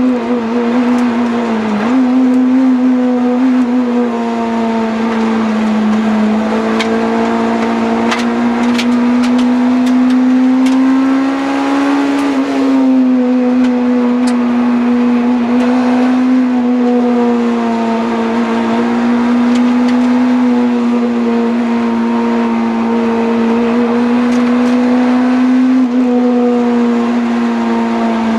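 Engine of a DC5 Honda Integra heard from inside the cabin, held at high revs on the track. The pitch stays high and fairly level, with a short dip about two seconds in, gentle rises and small drops later, and scattered clicks around the middle.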